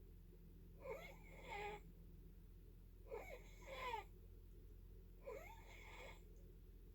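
Faint, rhythmic wheezy snoring, three breaths about two seconds apart, each with wavering, whistling tones.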